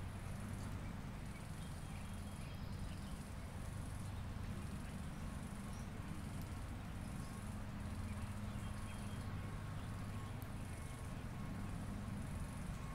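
High-pitched insect trill in short repeated bursts, about one a second, over a low steady rumble.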